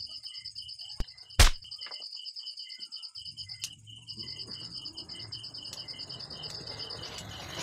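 Crickets chirping in two high, fast-pulsing trills. A sharp knock comes about one and a half seconds in. From about three seconds in there is a low rustle of flower stems and leaves being handled.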